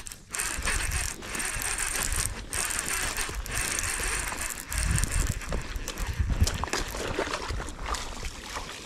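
Fishing reel being cranked: a steady whirring of the reel's gears, breaking off briefly about once a second in the first half, with a few low rumbles around the middle.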